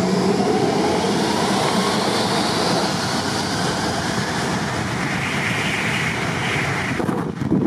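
Twin-engine Airbus A330 airliner's jet engines spooling up to takeoff thrust, a steady roar with a rising whine. About seven seconds in, the jet blast reaches the microphone and buffets it with gusty wind noise.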